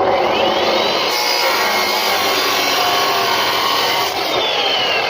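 Electric abrasive disc cutter cutting iron. The motor whine rises in the first second, a harsh grinding cut runs for about three seconds, and the whine falls in pitch near the end.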